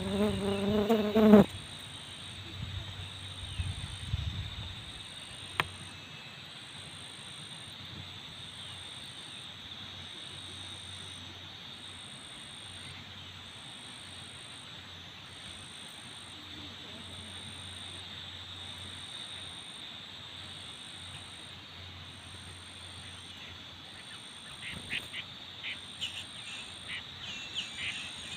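Steady drone of insects, with a high insect chirp pulsing about once a second. A brief voice-like sound, the loudest thing, comes at the very start, and a few short bird chirps come near the end.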